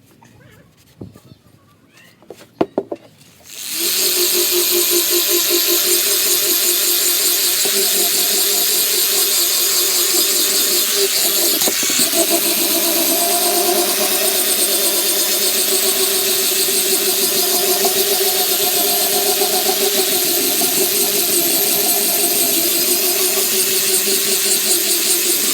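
A few sharp clicks, then about three and a half seconds in a power tool starts up and runs steadily with a high, squealing, wavering tone, as in grinding or polishing metal.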